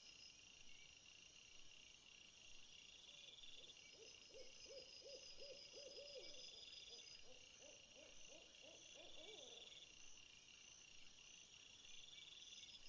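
Faint nature ambience: insects trilling in repeated bursts. In the middle comes a quick series of low hoots, about five a second, in two runs.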